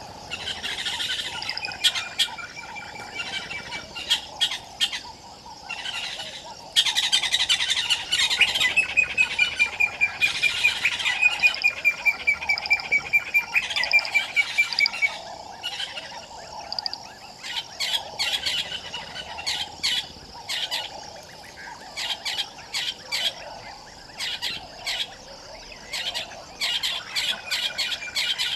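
Several wild birds calling at once: rapid chirps and chattering, with a long, even, high trill heard twice, the second time much longer. The calling is densest and loudest from about seven to fifteen seconds in.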